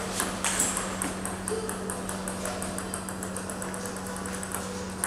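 Table tennis balls clicking off bats and tables in fast, irregular rallies, the hits from more than one table overlapping, over a steady low hum.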